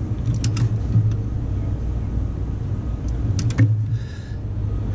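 Torque wrench on the starter mounting bolts clicking: two sharp metal clicks about half a second in and a quick run of three a little after three seconds, over a steady low rumble.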